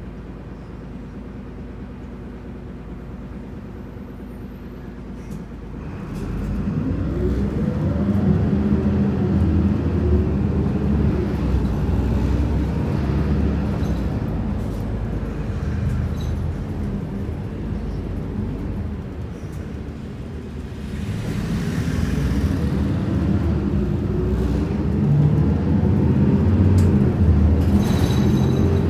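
Diesel engine of a Mitsubishi Fuso Aerostar 2PG-MP38FK city bus, heard from inside the passenger cabin. It idles low for about six seconds. Then the bus pulls away and the engine note rises as it accelerates. It eases off about twenty seconds in and rises again as the bus accelerates a second time.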